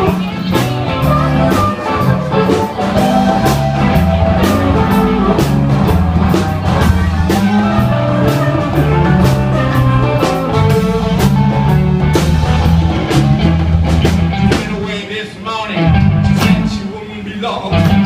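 Rock-style background music with guitar, bass and a steady drum beat, and a singing voice at times; it drops away briefly a few seconds before the end, then comes back.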